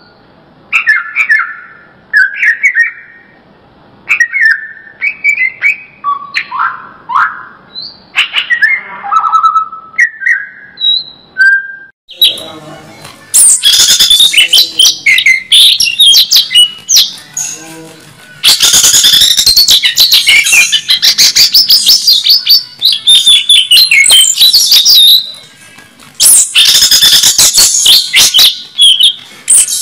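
Cucak ijo (green leafbird) singing: short, separate whistled phrases for about the first twelve seconds, then long, loud runs of rapid, very high chattering song with a couple of brief breaks.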